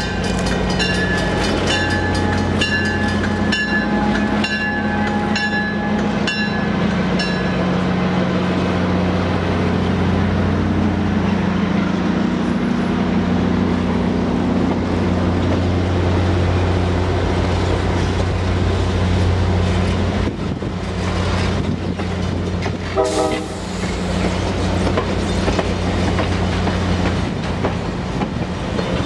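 An FL9 diesel locomotive and its train of passenger cars rolling past close by, with a steady low engine drone and the wheels clicking over the rail joints. A grade-crossing bell rings steadily for the first several seconds, and there is a short squeal about three-quarters of the way through.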